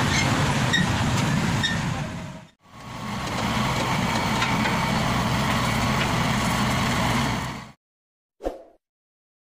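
Roadside engine and traffic noise, then after a cut about two and a half seconds in, the diesel engine of a Yanmar YH850 combine harvester running steadily as it drives on loading ramps onto a truck. The engine sound cuts off abruptly near the end, followed by one short sound.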